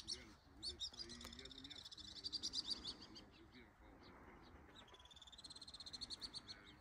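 Alpine swifts calling in rapid, high trills: one trill about a second in that lasts some two seconds, and another that starts about five seconds in.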